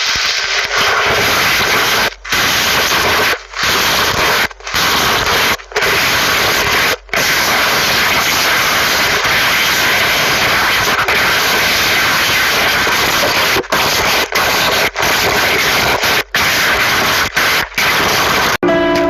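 Slime being worked by hand: a loud, dense hissing noise with no pitch, broken by about a dozen sudden brief cut-outs.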